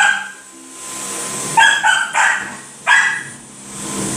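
Dog barking: a few short, sharp barks, with one at the start, a quick pair about a second and a half in and one more about a second later.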